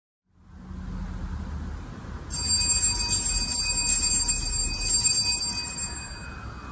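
A small high-pitched bell rung rapidly, ringing for nearly four seconds from about two seconds in, over a low rumble of room noise.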